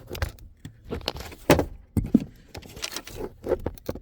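A car audio speaker and its dash grill knocking and scraping against the dashboard as they are pushed into the speaker opening. There is a run of sharp clacks, loudest about a second and a half in. The speaker's tweeter is too tall, so the grill will not seat.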